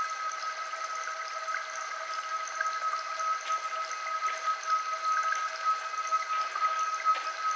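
Healing-frequency soundtrack: a steady high-pitched tone with a fainter lower tone and higher overtones, over a trickling, water-like patter of tiny sparkling sounds.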